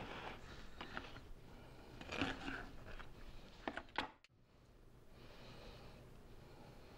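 Quiet handling sounds: a few light clicks and soft knocks as a slice of bread is handled and set down on a kitchen counter, the loudest around two seconds in and near four seconds. After that, only faint room hiss.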